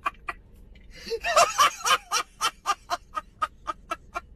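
A person laughing in quick, evenly spaced bursts, about four a second, with a denser, louder stretch about a second in: a meme laughter sound clip.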